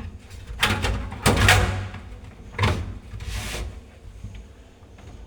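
An NVR's sheet-metal cover being slid and pressed back onto its case: a few knocks and scrapes, the loudest about a second and a half in, then quieter handling.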